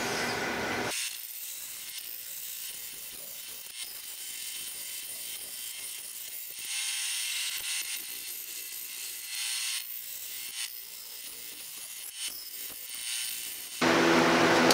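Bandsaw running and cutting slots in a small wooden block, a steady high hiss with a few sharp clicks.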